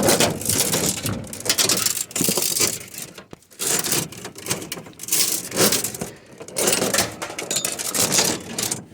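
Irregular clattering and rattling of hard objects being handled and shifted, in uneven bursts over several seconds.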